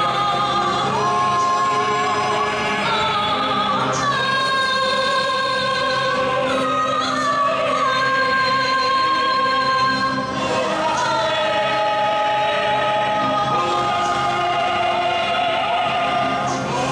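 Voices singing long, held notes with vibrato that change pitch every few seconds, in a choral, operatic style, over a military band's accompaniment.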